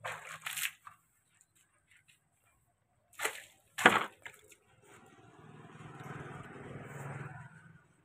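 Water splashing by a plastic bucket onto concrete: a few short splashes at the start, two loud sharp splashes about three and four seconds in, then a softer sloshing wash that swells and fades over a couple of seconds.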